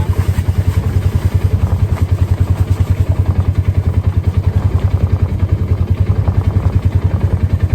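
A vehicle engine running steadily close by, with a rapid, even low pulse.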